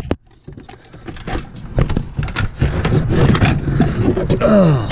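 A car's radiator cooling fan assembly knocking and scraping against the surrounding parts as it is worked down out of the bottom of the engine bay by hand, with a sharp click at the start and a short falling tone near the end.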